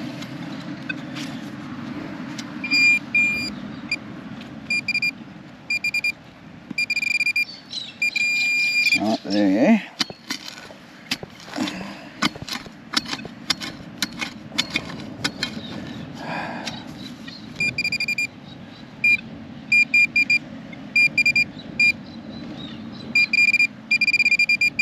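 Metal detector sounding a high steady tone in repeated short on-off bursts over a buried target. In the middle the beeping stops while a digging tool strikes and chops at hard ground and tree roots in quick, uneven knocks; the beeping then resumes.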